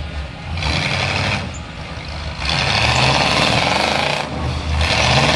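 Off-road vehicle's engine running under load on a loose, rocky hill climb, with a steady low drone that surges three times into loud, hissing bursts of throttle as the wheels spin in the dirt.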